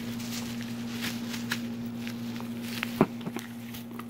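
Faint handling and shuffling noises over a steady low hum, with one sharp knock about three seconds in.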